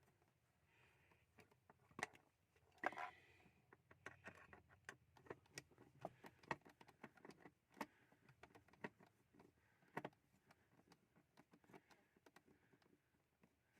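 Faint, scattered clicks and small metallic knocks of screws being undone and an access cover over a car's fuel pump being worked loose, with a louder clatter about three seconds in.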